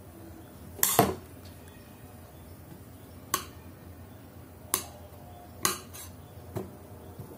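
A metal spoon knocking against a plastic plate as a toddler chops small pieces of food with its edge. The loudest knocks come in a cluster about a second in, then single knocks follow about once a second.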